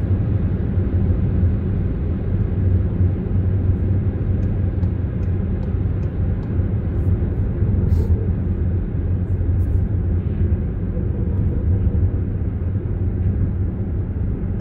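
Steady low rumble of engine and tyre noise heard inside the cabin of a 2020 Skoda Superb cruising at a constant speed.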